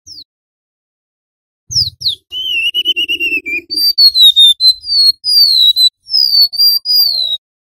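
Golden-bellied gerygone (remetuk laut) singing: a run of thin, high whistles, most sliding down in pitch, starting about two seconds in after one short note at the very start.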